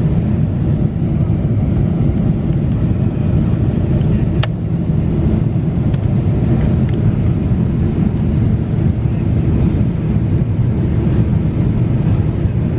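Steady low drone inside the economy cabin of a Boeing 747-8 airliner. A sharp click comes about four and a half seconds in, and a fainter one about two seconds later, as the seatback cup holder and tray table latch are handled.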